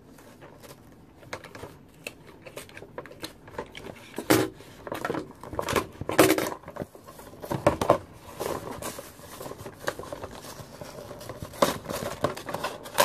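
Cardboard box and plastic packaging being handled and pried open by hand: irregular rustling and crinkling with sharp clicks, the loudest about four and six seconds in.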